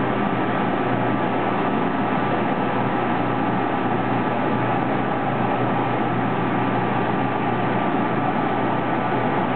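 Crossflow filtration unit running steadily as caustic cleaning solution is pumped through its membrane housings: an even mechanical hum with a low drone and a faint high whine, no change in level.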